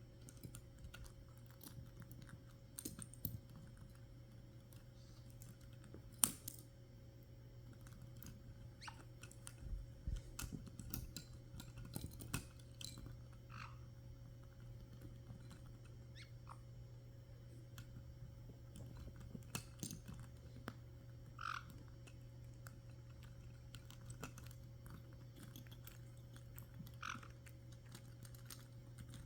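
Caique parrots chewing and tearing at something with their beaks: scattered clicks and crunches, with three short squeaks, over a steady low hum.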